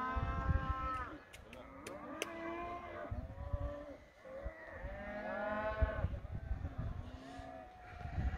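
Grazing livestock calling several times, with two long calls, one at the start and one about five seconds in, over a low wind rumble on the microphone. A few sharp clicks in the first couple of seconds.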